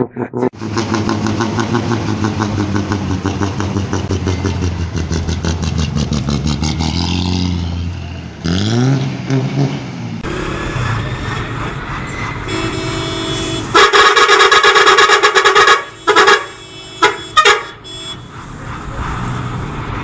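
Hino AK1J bus diesel engine running hard with a fast, even pulsing, then revving up in a rising pitch. Later a bus air horn sounds loud for about two seconds, followed by three short blasts.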